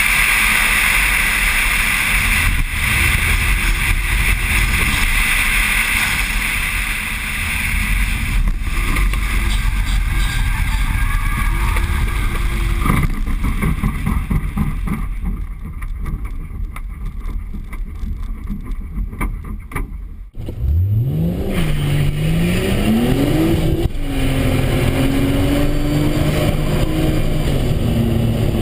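Nissan Stagea wagon driven at speed. For the first two-thirds there is a steady rush of wind and road noise with the engine low underneath. About 20 seconds in the sound changes abruptly to the engine heard from inside the cabin, its revs climbing, dropping at a gear change, climbing higher, dropping again and then holding steadier.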